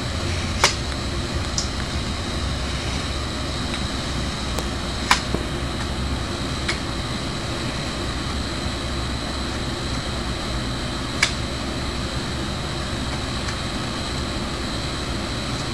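Powder-coated metal stand poles being fitted into their cross joints, giving three sharp clanks spread out over steady background noise, with a few fainter taps between.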